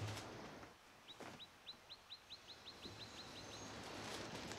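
Cardboard and plastic packaging rustling and scraping as it is pulled out of a large bike shipping box. In the middle a small bird gives a quick run of about a dozen short, high chirps, about four a second.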